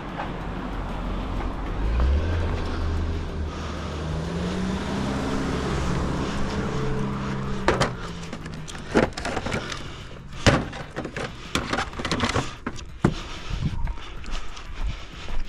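An engine running, its pitch climbing a few seconds in, then fading out; after it comes a string of sharp knocks and clatters.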